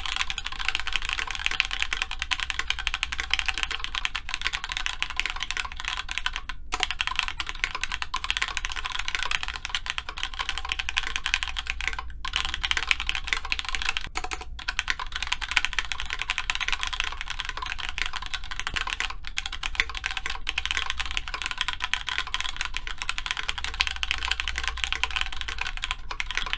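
Fast, continuous typing on a plateless Grid600 tray-mount mechanical keyboard with stock Gateron Yellow linear switches and GMK keycaps, center post removed. It has a hollow sound with more PCB sound than case sound. Near the end the small felt piece is added, which leaves the sound largely unchanged.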